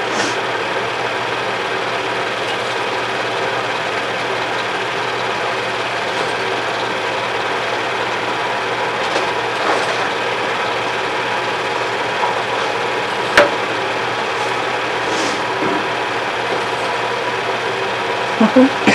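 Film projector running with a steady mechanical whir while showing silent home movies. A single sharp click comes about thirteen seconds in.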